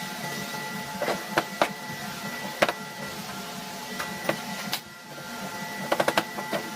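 A machine running steadily with a hum and a high whine, while sharp knocks and clicks come at irregular intervals, including a quick run of several near the end.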